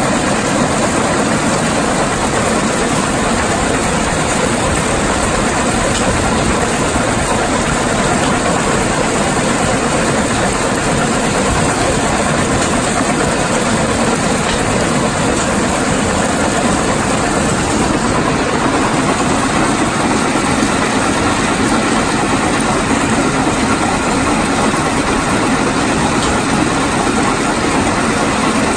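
Yongwon SP300 cone crusher (M type) running at 1050 rpm under load, crushing rock fed into its bowl, along with the plant's conveyors. The mechanical noise is loud, steady and unbroken.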